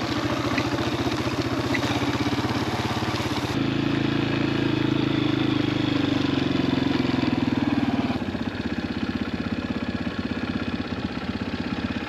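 Dirt bike engine running steadily at low speed while being ridden. The engine note changes abruptly twice, about a third and two-thirds of the way through.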